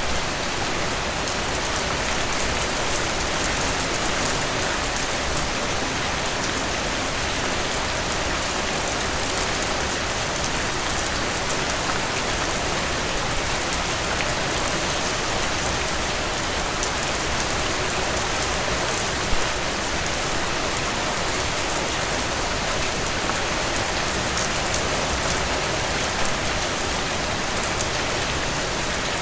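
Steady rainfall with a constant hiss and many individual drops ticking, with no thunder.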